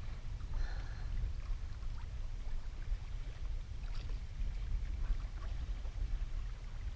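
Wind buffeting the microphone as a steady low rumble, with choppy water lapping around a kayak and a few faint small clicks.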